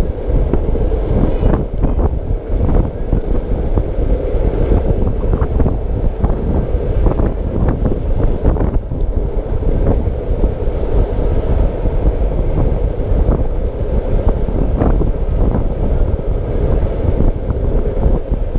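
Wind buffeting the microphone of a camera on a moving bicycle: a loud, steady rumble with a steady hum and scattered clicks and knocks.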